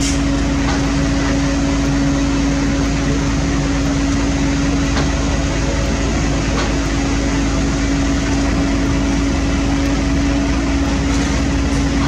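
Diesel engine of paving heavy equipment running steadily, a constant low drone with a strong steady hum.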